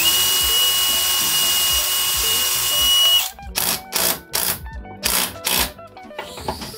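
Cordless drill running steadily for about three seconds as it bores a hole, then stopping abruptly. Several short bursts of the drill follow as screws are driven in to fasten the pulley bracket.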